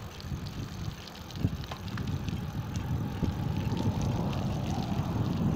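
Wind rumbling on the microphone of a moving bicycle, with road and tyre noise, growing louder about a second in. Scattered light clicks and rattles sound over it.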